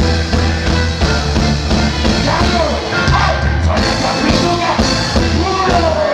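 Live reggae band playing loudly through a concert PA, with heavy bass and a steady beat. A male vocalist sings into a microphone over it.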